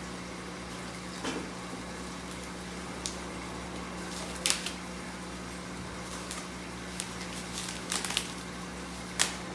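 Hard objects handled and set down, giving scattered light clinks and knocks over a steady low hum.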